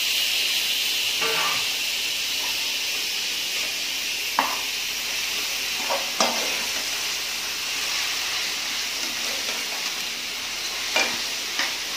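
Onions, green chillies, ginger and garlic sizzling in hot oil in a pressure cooker pot while a metal spatula stirs them. There are a few sharp taps of the spatula against the pot. The mix is being sautéed until the raw smell of the ginger and garlic goes.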